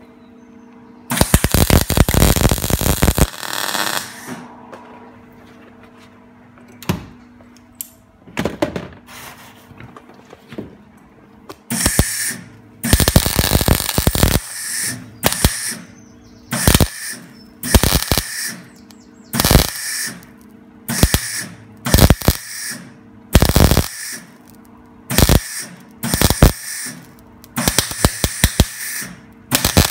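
MIG welder arc crackling in a series of short spot welds on a car's replacement quarter panel, a burst of half a second to a second about every second or two, with one longer weld about a second in. A faint steady hum continues between the welds.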